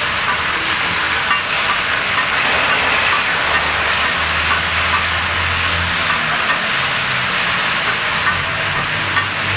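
Meat, onion and capsicum sizzling on a hot flat griddle while a metal spatula scrapes and clicks rapidly against the griddle, stir-frying them.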